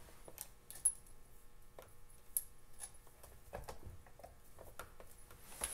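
Light metallic clicks and clinks, irregularly spaced, as a saw chain and bar are fitted onto a chainsaw and a bar wrench is handled at the bar nuts.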